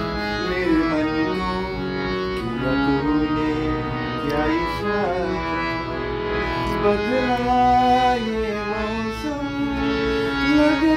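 Paul & Co hand-pumped harmonium playing sustained chords under a man's voice singing a slow Hindi song melody, with long held and gliding notes.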